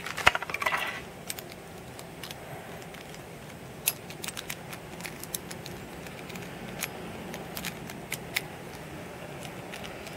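Small hard plastic Beyblade parts clicking and clattering as they are picked up and handled, with a short crinkle of a plastic bag about a second in. The clicks come singly and sparsely.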